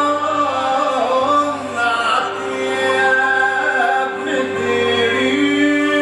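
A man singing an Arabic song live, his voice moving through a slow melodic line over steady held notes from the accompanying band.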